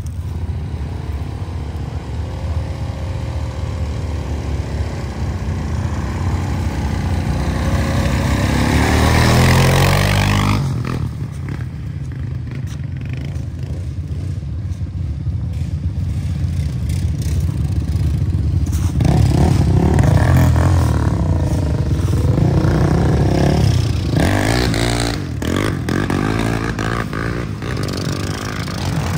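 ATV engines running and revving on a dirt trail. They climb in pitch and level to a peak about eight to ten seconds in, then drop off abruptly, and rev up again with rising and falling pitch past the midpoint.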